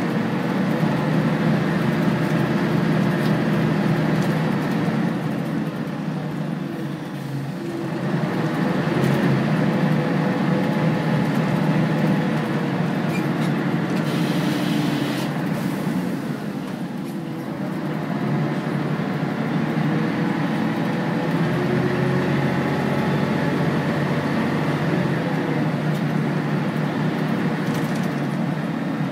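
Volvo B10BLE bus's rear-mounted six-cylinder diesel engine running under way, heard inside the cabin near the back. Its drone eases off and falls in pitch twice, about a quarter of the way in and again just past halfway, then picks up again, with a brief hiss about halfway through.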